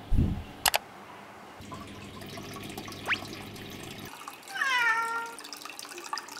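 A domestic cat meows once in the middle, a call of just under a second that slides down in pitch. Near the start there is a low thump, then a short sharp click.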